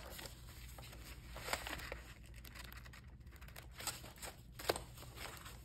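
Paper rustling as sheets of printed paper and card are handled and shuffled, with light crinkling of a cellophane bag and a few sharper small ticks.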